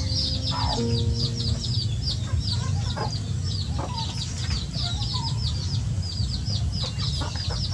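Young chickens clucking softly while pecking at feed, over a quick, high chirping that repeats about four or five times a second.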